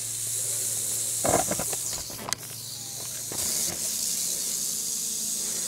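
Rattlesnake rattling its tail: a steady high buzzing hiss that breaks off briefly a little after the middle, then starts again. A few short knocks and a faint low hum lie under it.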